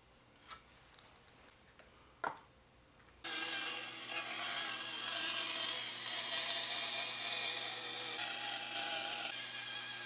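A couple of light knocks of wooden pieces being handled, then about three seconds in a bandsaw cuts steadily through plywood, loud and continuous.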